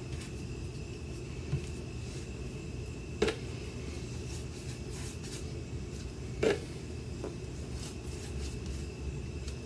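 Paintbrush loaded with thick chalk paint brushed over a wooden dresser's drawer fronts: faint swishing strokes over a steady low hum, with a few short knocks, the loudest about three seconds and six and a half seconds in.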